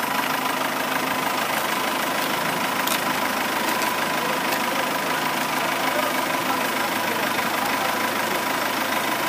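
Fiat 550 tractor's diesel engine idling steadily.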